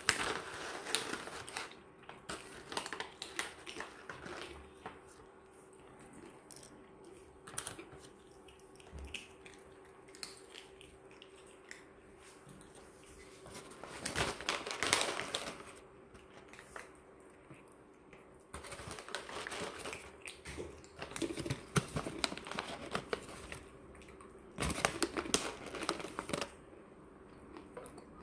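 Crinkling and rustling, like plastic packaging being handled, in irregular bursts with many small clicks. It comes loudest at the start, in the middle and over a stretch near the end.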